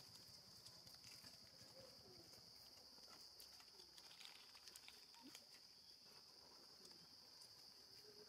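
Near silence: a faint steady high-pitched hiss with scattered faint ticks.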